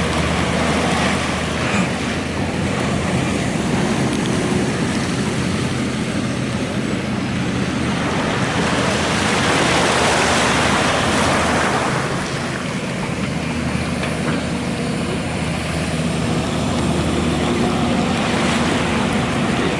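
Diesel engine of an excavator running steadily, a low drone under small waves washing ashore; a louder rushing noise swells about halfway through for a few seconds.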